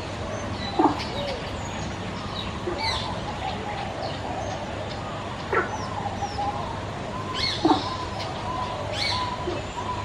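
Several birds chirping and calling, with short high chirps and whistles over a low steady hum; a few louder, sharper calls stand out, about a second in and twice in the second half.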